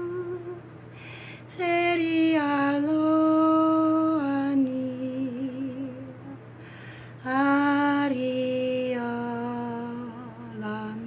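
A woman singing unaccompanied in long, held notes of wordless 'light language' syllables. There are two slow phrases that step gently up and down in pitch, with a breath taken before each.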